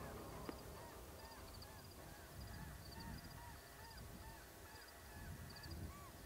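Faint, repeated honking calls of distant birds, about two a second at two different pitches, with thin high chirps above them.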